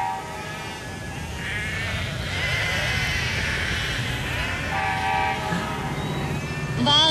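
A large flock of sheep bleating, many calls overlapping into one wavering chorus.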